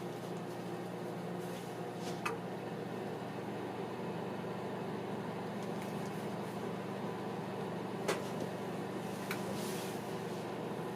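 Microwave oven running with a steady hum, with sharp clicks about two seconds in and twice more near eight and nine seconds. This is the faulty oven that keeps running even when its door is opened.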